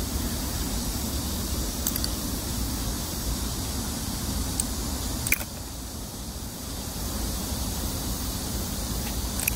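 Steady outdoor background noise, a low rumble with a high hiss, broken by a few faint clicks, the clearest about five seconds in.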